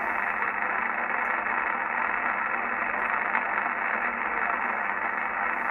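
Steady hiss of static from a radio receiver's speaker, with no station speaking, thin and narrow in tone like a communications receiver's audio.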